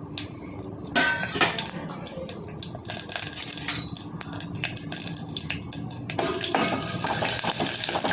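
Tadka tempering in hot oil in a pan: seeds and spices crackling and popping, with sharp clinks of a spoon on the pan. About six seconds in, a denser, louder sizzle sets in.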